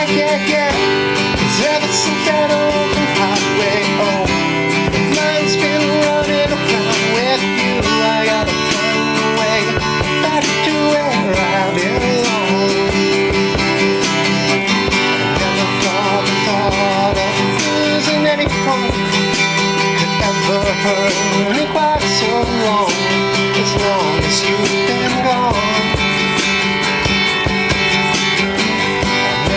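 Live acoustic guitar strummed steadily, with a wavering melody line carried over it.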